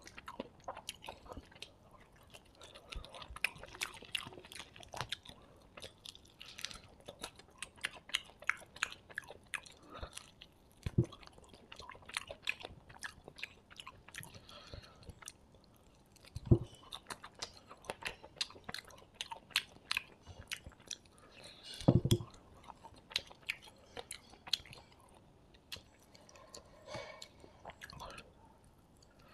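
Close-miked eating: a man chewing and biting mouthfuls of fried meat and fried rice, a dense run of quick crunches and wet clicks, with three louder low thumps spread through the stretch.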